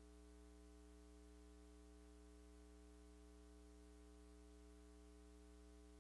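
Near silence: a faint, steady electrical hum with a light hiss, unchanging throughout.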